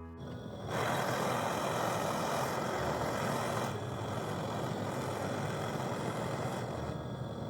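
Steady hissing rush of gas, loudest for the first three seconds and then settling a little lower.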